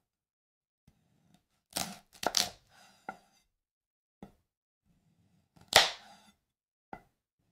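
AI-generated ASMR cutting sound of a knife slicing through a dragon fruit: a run of sharp, crisp cracks and crunches, a cluster of them about two seconds in and the loudest near the six-second mark.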